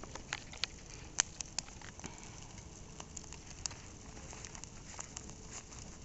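Bonfire of a burning cardboard box crackling, with irregular sharp pops and snaps over a low steady hiss; the loudest pops come about a second in.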